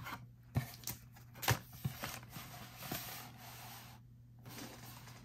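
Cardboard booster box being handled and folded into its display shape: a few soft clicks and taps with light scraping, over a faint steady hum.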